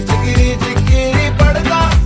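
Background music: an Afrobeat-style track with a steady, even beat and a melodic line over it.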